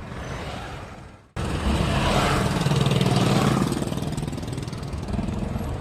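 A motor vehicle engine running close by, starting abruptly about a second in and staying loud and steady after a quieter stretch of street noise.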